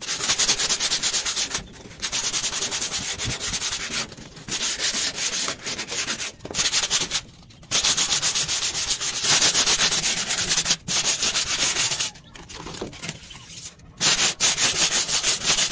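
Hand sanding of a rusty corrugated galvanized iron roof sheet with 100-grit sandpaper to strip the surface rust: rapid back-and-forth scratchy rubbing strokes. The strokes stop briefly several times, with a longer pause of about two seconds near the end.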